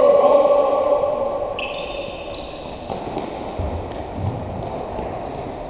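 Indoor five-a-side football in a sports hall: trainers squeaking sharply on the hall floor several times, with a couple of dull thuds of the ball being kicked or bouncing, all echoing in the large hall.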